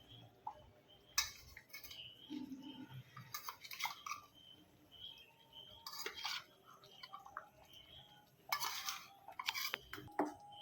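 A spoon scraping and clinking against a dish and a cooking pan in a few short bursts, as fried paneer cubes are tipped into the boiling gravy.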